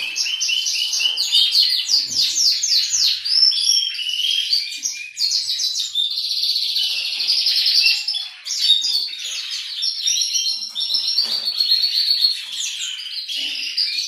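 Caged finches singing: a fast, unbroken twittering of high chirps and trills.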